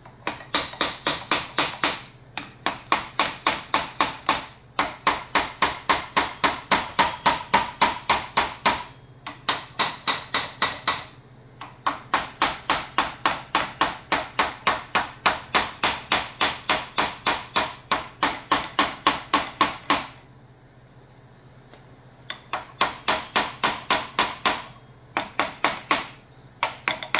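Brass hammer tapping the gland of a John Deere hydraulic cylinder, quick light blows about five a second in runs, driving the gland evenly down into the cylinder tube so it sits deep enough for the lock ring. The taps stop for about two seconds a little after the middle, then start again.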